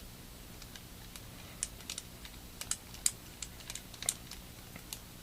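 Light, irregular clicks and ticks of a small screwdriver and fingers working on a Galaxy S3's plastic frame while a tiny screw is driven in.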